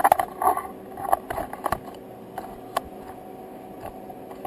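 Handling knocks and light metallic clinks, bunched in the first two seconds and sparser after, over a steady background hum of the running setup.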